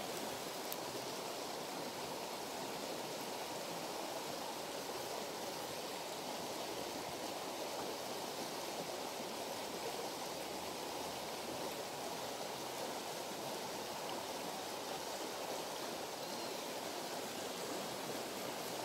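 Shallow river running over rocks and gravel: a steady rush of flowing water.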